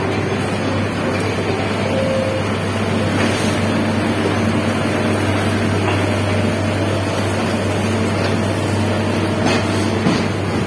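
Steady low drone of sugar mill cane-unloading machinery as an overhead crane's grab lifts a bundle of sugarcane, with a short knock near the end.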